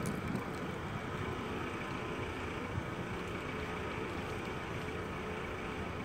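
Steady road traffic noise, a continuous low rumble without distinct events.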